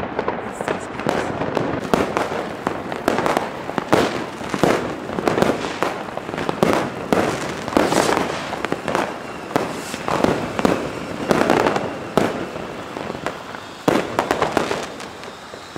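Many firecrackers and fireworks going off in rapid, irregular succession, bang after bang with echoes and hardly a gap, thinning a little near the end.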